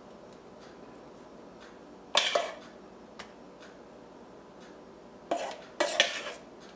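A utensil scraping and knocking against a stainless steel mixing bowl while scooping out thick pudding, in three short bursts: one about two seconds in and two close together near the end.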